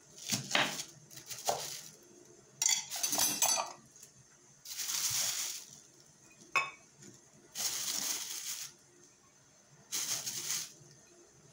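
A few knife strokes through an onion on a board covered with a plastic bag. Then several spells of plastic rustling and crinkling as the cut onion is gathered and the sheet is handled, with one sharp clink partway through.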